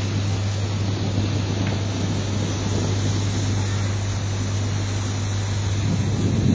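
A boat engine runs steadily with a constant low hum, under a wash of water and wind noise.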